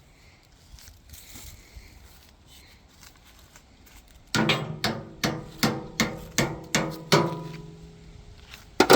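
A hammer strikes steel about eight times in quick succession, each blow ringing, then once more near the end. It is driving a small metal locking sleeve onto the pin of a box blade's three-point hitch.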